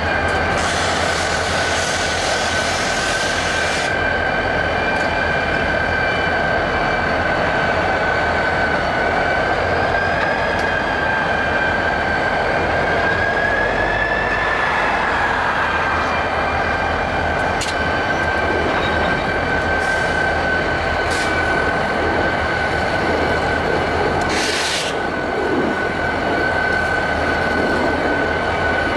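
Diesel locomotives, including a CP Rail MLW M630 and Soo Line units, running with a steady high-pitched whine over a constant engine rumble. A hiss sounds over the first few seconds and again briefly about 25 seconds in.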